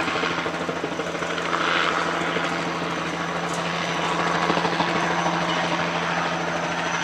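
A steady mechanical drone with a fast flutter, holding level throughout.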